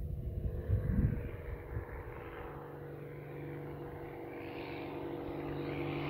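Propeller engine of an agricultural airplane approaching in the air, a steady drone that grows gradually louder. Some handling knocks in the first couple of seconds.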